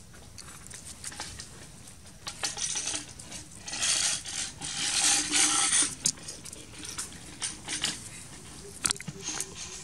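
Scratching, rustling and tapping on the camera microphone as a baby macaque paws at the camera, loudest from about three and a half to six seconds in, with scattered clicks before and after.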